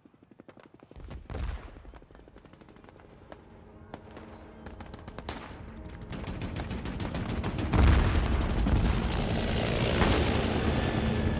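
Rapid automatic gunfire in a war-film soundtrack, faint at first and growing steadily louder, with a heavy low boom about eight seconds in and a dense din of shots and rumble after it.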